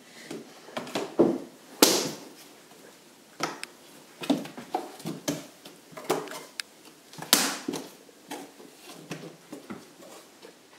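A toddler's bare hands and feet slapping and tapping on hardwood stair treads while crawling up a staircase: irregular knocks, the loudest about two seconds in and again about seven seconds in.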